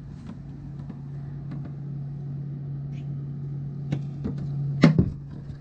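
Fibreglass shower floor panel on a boat being lifted out: a few light knocks, then a louder clatter of two or three hits near the end. A steady low hum runs underneath throughout.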